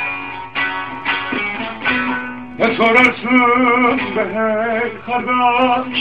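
Bağlama (long-necked Turkish saz) strummed and picked in a rhythmic folk melody. About two and a half seconds in, a man's voice joins with long wavering wordless notes over it.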